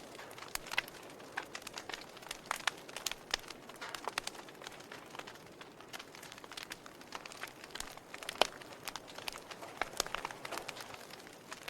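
Log fire crackling: irregular sharp pops and snaps over a low steady hiss, with one louder snap about eight seconds in.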